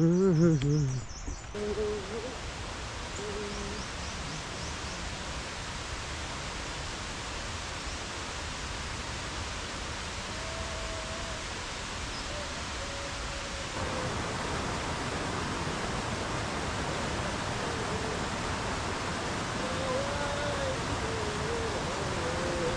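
Steady rushing noise of running water, which grows a little louder about two-thirds of the way through. A short burst of voice opens it, and a few faint calls sound now and then.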